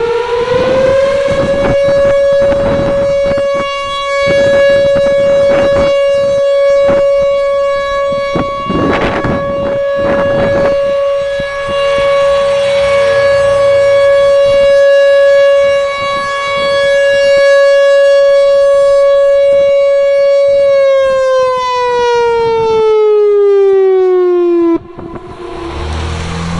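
Whelen 4004 outdoor warning siren sounding a steady tone in a test. It finishes rising to pitch about a second in, holds steady, then winds down in falling pitch from about 21 seconds in and cuts off abruptly near the end. Wind gusts buffet the microphone throughout.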